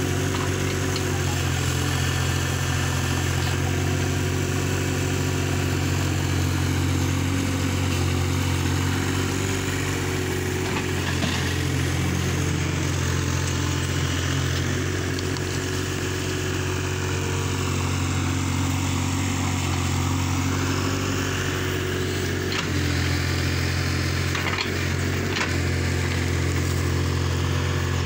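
Hyundai R30Z-9AK mini-excavator's diesel engine running steadily under hydraulic load while it digs, with a few short knocks, mostly in the latter half.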